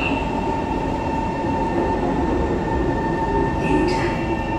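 Kawasaki Heavy Industries C151 metro train running: a steady rumble with a steady high whine over it.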